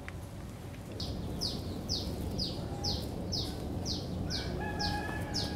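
A small bird calling: a short, high, falling chirp repeated about twice a second, starting about a second in.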